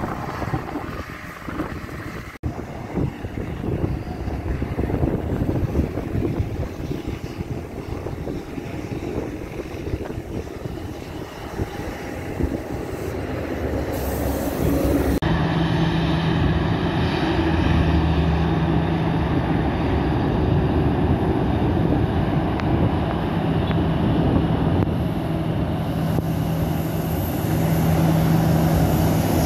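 Wind buffeting the microphone over a low airport rumble. Then, after a cut about halfway, the louder, steady hum and whine of a Boeing 737's jet engines at idle as it taxis.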